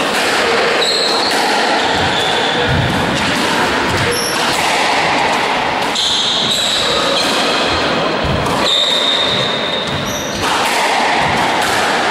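Squash rally: the ball is struck by rackets and smacks off the court walls, while sneakers squeak sharply on the wooden court floor several times, echoing in the court.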